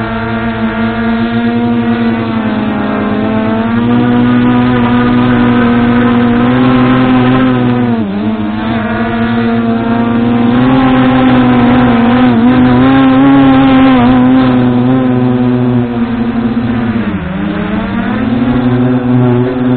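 MJX Bugs 2W quadcopter's brushless motors and propellers, heard from the action camera mounted on it, running with a loud steady whine as it lifts off and flies. The pitch shifts as the throttle changes and dips sharply twice, about eight seconds in and again near the end.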